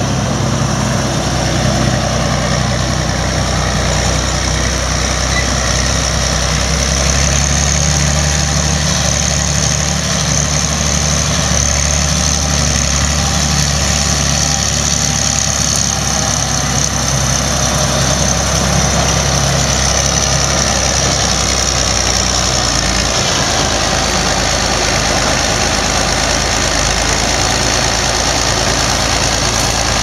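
Rába-Steiger 250 articulated tractor's diesel engine idling steadily.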